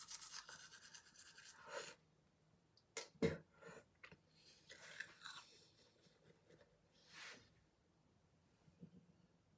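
Toothbrush scrubbing teeth in quick strokes for about two seconds, then stopping, followed by a few faint clicks and soft rustles.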